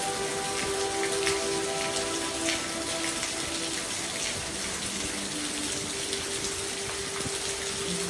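Steady rain falling, with individual drops ticking on a surface, over soft music of long held notes that change every few seconds.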